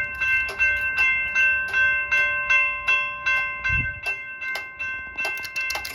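Railroad crossing bell ringing, struck evenly about two and a half times a second.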